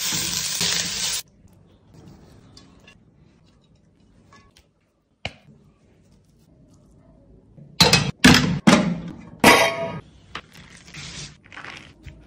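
Kitchen cooking sounds: a loud hiss for about the first second, then near quiet, then a cluster of sharp clatters and scrapes of a metal spoon against a pot about eight to ten seconds in.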